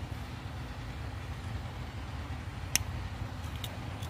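Steady low outdoor rumble, with one sharp click about three seconds in.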